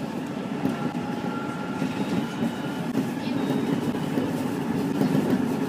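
Nankai Koya Line electric train running at about 60–67 km/h, heard from the driver's cab: steady rolling noise of wheels on rails while it picks up speed, with faint whining tones above it.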